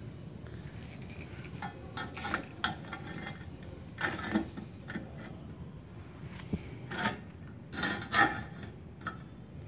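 Spring-loaded earth clamp of a welder being handled and snapped onto a thin galvanized steel channel: a series of short metal clicks and clatters in several clusters, the loudest about eight seconds in.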